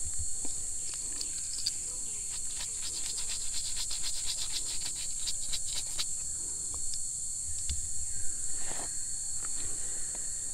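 Steady high-pitched drone of forest insects. A run of rapid, even ticks, about six a second, sounds through the middle, and a brief rustle comes near the end.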